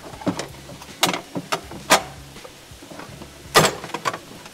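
Kitchen crockery and utensils clattering: a string of sharp knocks as a large plate is fetched and handled, the loudest a little under two seconds in and again about three and a half seconds in.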